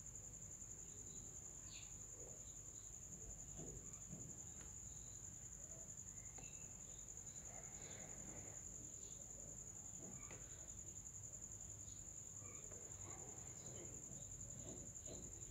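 Faint, steady, high-pitched insect trill, with a low hum beneath.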